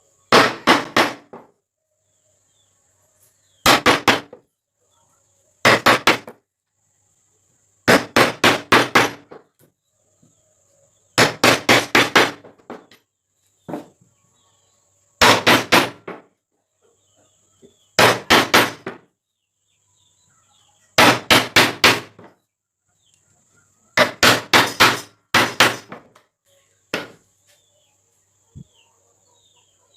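Hammer driving nails into wood: short runs of three to six quick blows, a new run every two to three seconds, with a single lighter blow near the end.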